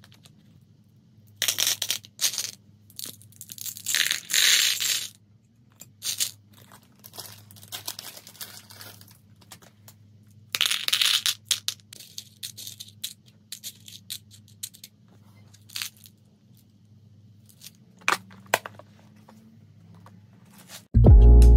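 Plastic bags crinkling and loose beads clattering into a clear plastic compartment organiser box, in several separate bursts with scattered clicks in between. A faint steady low hum runs underneath, and music comes in at the very end.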